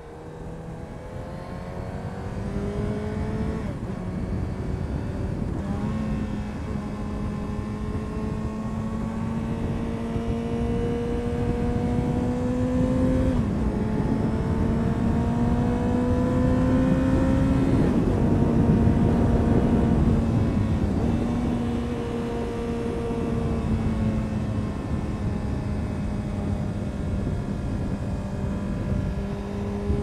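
2000 Honda CBR929RR Fireblade's inline-four engine through an Erion full racing exhaust, pulling up through the gears: the pitch climbs slowly and drops at each upshift, three or four times. It grows louder over the first few seconds.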